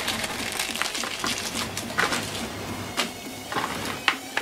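Plastic shrink wrap crinkling and crackling as it is peeled off a Blu-ray box set by hand, with irregular sharp crackles throughout.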